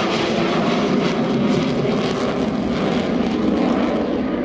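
Avro Vulcan bomber flying past, its four Rolls-Royce Olympus jet engines giving a loud, steady rush of noise.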